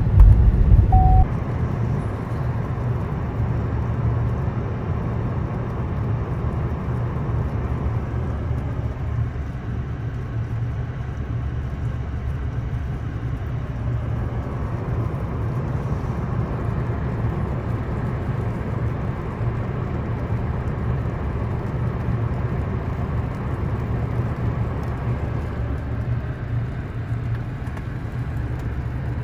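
Car driving, heard from inside the cabin: a steady low engine and road rumble, louder for about the first second.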